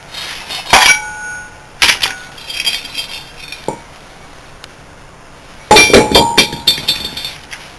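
Metal parts clinking and ringing against each other as a refrigeration compressor's suction-gas separator, fitted with mesh screens, is lifted out of and set back into the motor end housing. A few separate clinks come in the first two seconds, then a quieter spell, then a burst of loud clinks a little before the end.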